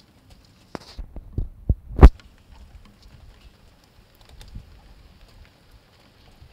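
Heavy raindrops striking the phone's microphone as a quick run of about six sharp thumps over a second and a half, the last loudest. Faint scattered ticks of rain patter follow.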